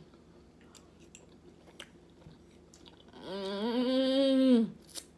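A person chewing food with small wet mouth clicks, then a long hummed "mmm" of enjoyment that rises, holds and falls about three seconds in.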